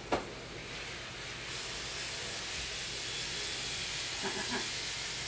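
A steady rushing hiss of air, a little louder from about a second and a half in, with one sharp snip of grooming shears right at the start.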